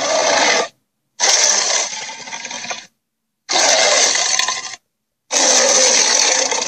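A run of separate harsh, noisy sound-effect clips, each starting loud and tailing off over about a second and a half. Each is cut off into dead silence before the next: the end of one, then three more.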